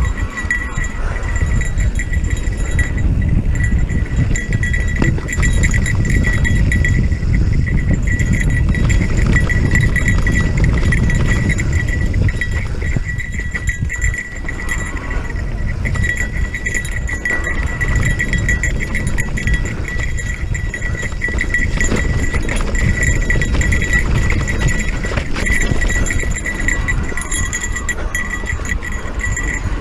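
Electric mountain bike ridden over rough trail: heavy wind rumble on the microphone and constant rattling and clattering of the bike, with a steady high ringing tone running through it.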